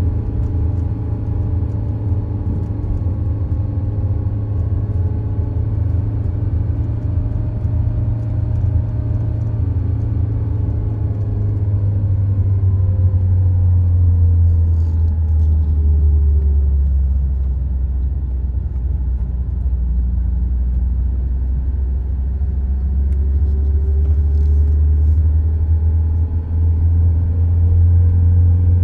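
Car engine and tyre rumble heard from inside the cabin while driving, a steady low drone. The engine note falls about halfway through and climbs again near the end.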